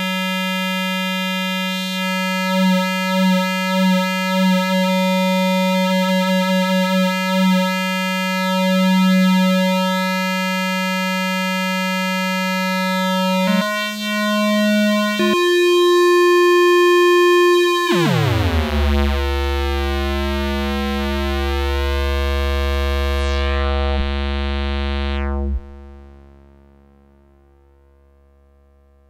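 Circuit-bent toy keyboard's synth voice holding a buzzy electronic tone that pulses as its knobs are turned. About halfway through, the pitch steps up twice. Then a steep falling sweep dives into a low buzz, which drops away sharply near the end and fades out.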